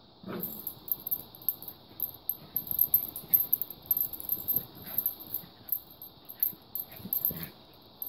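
A German Shepherd/Boxer mix puppy and a Chihuahua/Terrier mix play-fighting on bedding: short dog vocal sounds among uneven scuffling, the first about a quarter second in.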